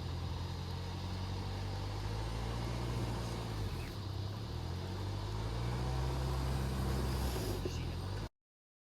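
Motor vehicle engine running steadily at low revs, its pitch shifting slightly, then cutting off abruptly near the end.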